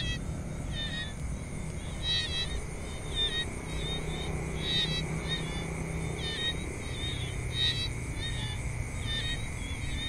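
Tropical jungle ambience: short, high chirping calls repeat every half second or so over a steady, high insect drone, with a low rumble underneath.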